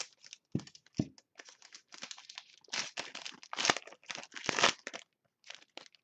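Scissors snipping open a trading-card pack wrapper, two sharp snips in the first second, then the wrapper crinkling and rustling as the card is worked out of it.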